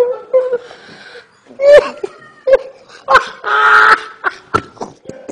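A man laughing helplessly in repeated bursts of high, breaking laughter, some of them breathy and gasping.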